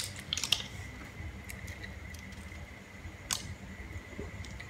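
A few light clicks of boiled green mussel shells knocking together as they are handled and pried open by hand: a short cluster at the start and a single sharper click a little past three seconds in, over quiet room tone with a faint steady high whine.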